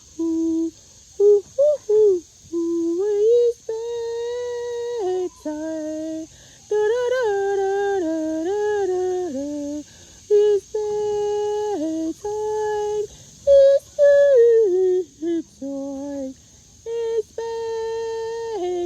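A woman humming a slow wordless tune in held notes that step up and down with short breaks between phrases, sung to coax hens to roost.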